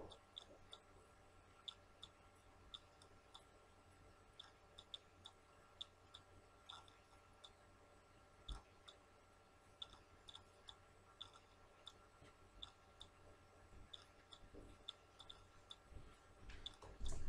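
Near silence: faint room tone with a steady low hum and scattered faint clicks, a soft thump about halfway through, and some louder movement sounds just before the end.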